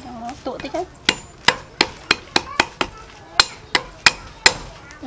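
Steel cleaver chopping red chilies on a thick round wooden chopping block: about a dozen sharp chops, two to three a second, starting about a second in.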